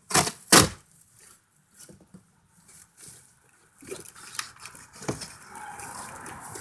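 Bicycle packaging being handled: two loud, sharp rips or knocks in the first second, then scattered clicks and steady rustling and scraping of the wrapping.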